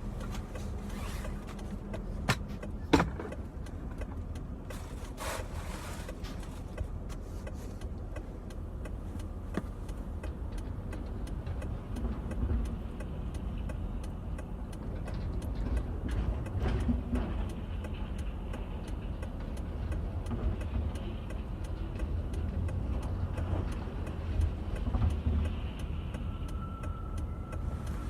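Steady low rumble of a car's interior while driving, with two sharp clicks a few seconds in and a faint steady tone starting near the end.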